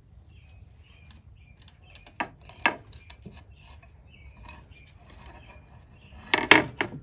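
Handling sounds of a wooden workpiece on a scroll saw's metal table while the blade is threaded through a drilled starter hole: two sharp knocks about two seconds in, faint scattered ticks, and a louder cluster of clicks and clinks near the end. The saw is not running.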